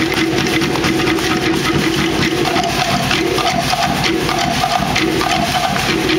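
Fast, steady live Polynesian drumming: rapid, even strokes with a ringing pitched tone, played as accompaniment to a fire knife dance.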